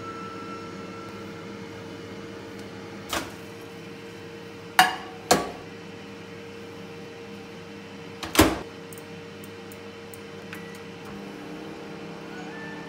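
Four sharp knocks and clunks as a plate under a plastic microwave cover is set into a built-in microwave and its door is shut, the loudest about eight seconds in, followed by a few light clicks. A steady low hum runs underneath.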